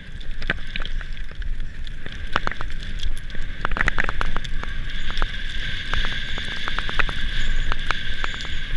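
Mountain bike rolling over loose slate stones: the tyres crunch on rock and set off a steady scatter of clicks and rattles from stones and the bike, over a low wind rumble on the camera microphone and a steady high buzz.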